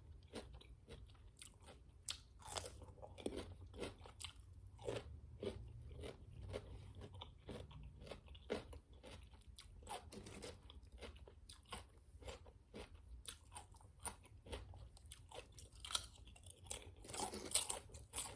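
Close-miked crunching and chewing of barbecue potato chips: a steady run of irregular, sharp little crunches.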